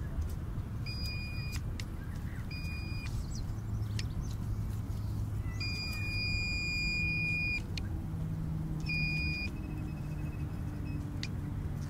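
Handheld metal-detector pinpointer beeping as it is probed into the soil of a dug hole, signalling metal nearby. It gives four high steady beeps: two short ones, one held for nearly two seconds in the middle, and another short one, followed by a fainter rapid pulsing.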